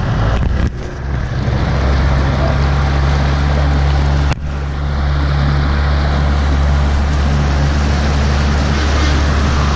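Outboard motor of a Tracker bass boat running steadily under way, a low even hum, with wind and water rushing past. The sound dips for a moment twice, about a second in and near the middle.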